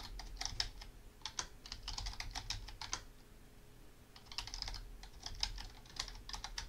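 Computer keyboard typing in quick runs of keystrokes, with a pause of about a second roughly three seconds in before the typing resumes.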